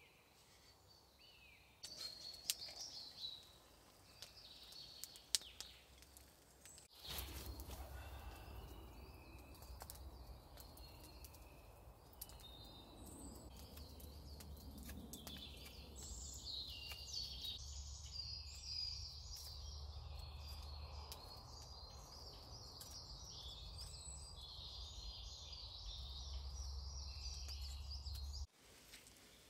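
Woodland birds chirping and singing, over a low steady rumble, with scattered small clicks and scrapes from a knife carving a wooden spoon.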